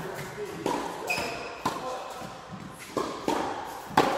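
Tennis rally in a large indoor hall: ball struck by rackets and bouncing on the court, about five sharp echoing knocks over four seconds, with a short squeak about a second in.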